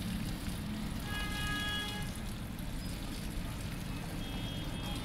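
Tap water running steadily and splashing into a plastic bowl of sliced bitter gourd as the pieces are rinsed by hand.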